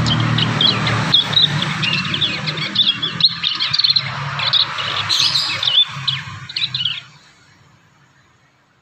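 Young prinias (prenjak) chirping and twittering in rapid, jumbled phrases while still learning their song, with a low hum beneath. It all stops about seven seconds in.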